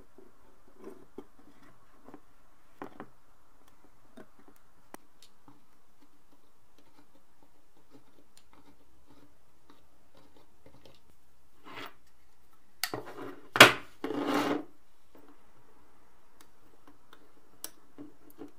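Small metal parts of an old flip calendar being handled and fitted by hand: scattered light clicks and taps, then about thirteen seconds in a sharp metal click followed by a brief scrape.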